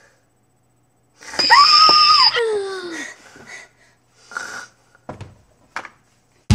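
A girl's exaggerated fake snore: a loud drawn-out noise with a high steady pitch, about a second long, then a falling whistle-like tone. A few faint short sounds follow.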